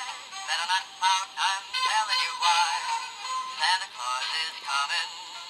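Sound chip in a plush reindeer dog toy playing a Christmas song with an electronic singing voice.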